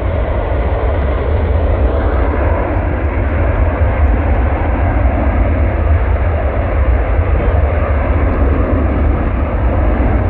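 Jet engine noise from a Qantas Airbus A380's four Rolls-Royce Trent 900 engines during its landing rollout: a loud, steady rush over a heavy low rumble.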